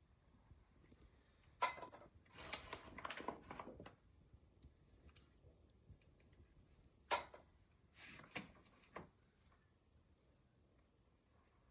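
Faint handling sounds: a sharp click followed by a second or two of rustling and tapping, then the same again a little past the middle.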